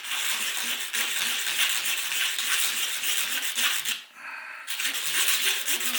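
Hand-sanding a small wooden toggle with 120-grit sandpaper: quick scratchy strokes, with a short pause about four seconds in.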